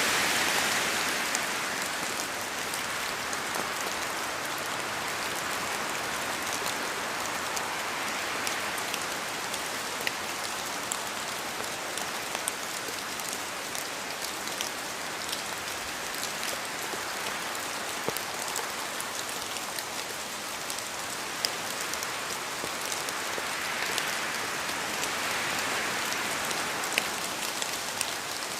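Steady rain falling in a forest, a continuous hiss with many separate drops ticking as they fall from the trees. The hiss swells a few times, about a second in, around eight seconds and again near the end, as gusts of wind move through the trees.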